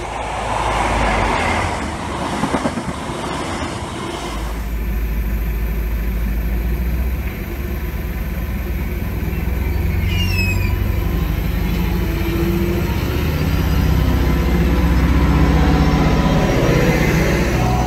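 A Greater Anglia Class 755 bi-mode multiple unit running on its diesel engines: a steady low rumble that grows louder as the train pulls away from the platform. The first few seconds are a different train's noise, cut off suddenly about four seconds in, and a brief high falling sound comes about ten seconds in.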